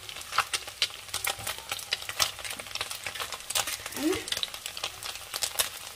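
Hot oil sizzling and crackling in a pan on high flame as scrambled egg, ginger-garlic and diced carrot fry, with dense rapid pops.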